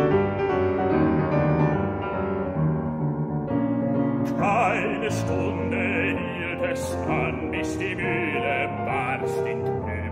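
Bösendorfer grand piano playing alone, then about four seconds in a male operatic baritone voice comes in, singing with vibrato over the piano accompaniment of a German art song (Lied).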